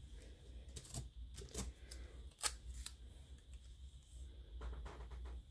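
Hands handling a piece of clear tape and thin nylon cords on a tabletop: a few faint, sharp clicks and crinkles, the sharpest about two and a half seconds in, over a low steady hum.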